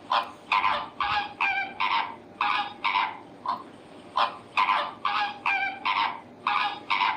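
A bird's harsh, honking calls repeated about twice a second, over a steady low background noise.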